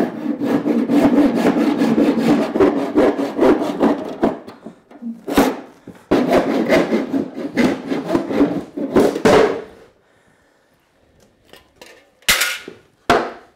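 Handsaw cutting through a wooden box in quick back-and-forth strokes, with a brief pause about five seconds in, the cut finishing after about nine and a half seconds. Two short knocks follow near the end.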